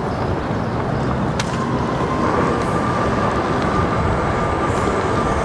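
Apollo Go dual-motor electric scooter riding over pavement: wind rush on the microphone and tyre rumble, with a thin steady motor whine coming in about a second and a half in as the scooter speeds up.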